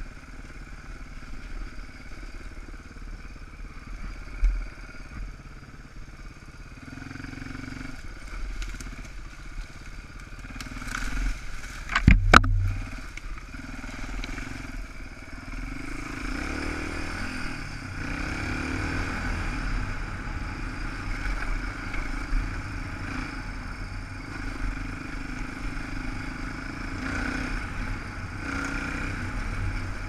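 Motorcycle engine running under way on a dirt trail, its note shifting as the speed changes. A single sharp clack stands out about twelve seconds in.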